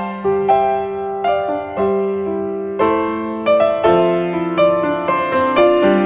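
Background piano music: a slow melody of struck notes, roughly two a second, over held low notes.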